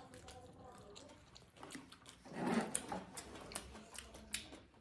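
Two people eating chow mein fast: faint chewing and noodle slurping with small clicks of forks on plates, and one louder muffled sound a little over two seconds in.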